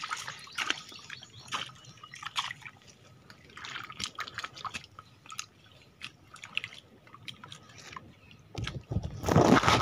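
Wet mud and shallow water squelching, dripping and splashing in scattered small bursts as a mud crab burrow is dug out with a bolo knife and bare hands. A louder rush of noise comes in near the end.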